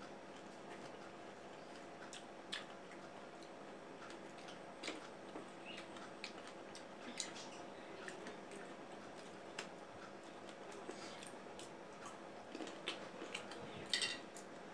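Quiet eating sounds: chewing cut fruit, with scattered light clicks and taps of a fork and fingers against ceramic plates, loudest in a short cluster near the end, over a faint steady hum.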